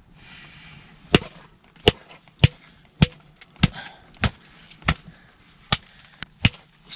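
A run of about ten sharp, hard knocks at uneven intervals of roughly half a second to a second, the sound of repeated blows being struck.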